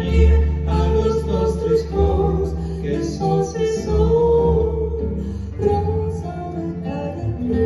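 Live acoustic folk song: a woman sings long held notes over nylon-string guitar, a second plucked string instrument and double bass.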